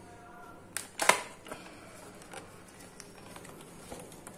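Earphone box being opened by hand: the cardboard sleeve and clear plastic inner tray give two sharp clicks about a second in, the loudest sounds, then lighter taps and crackles as the tray slides out.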